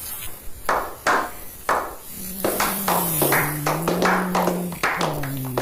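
Irregular sharp taps and slaps, coming faster after about two seconds. A low steady hum that slides slowly in pitch joins them at that point.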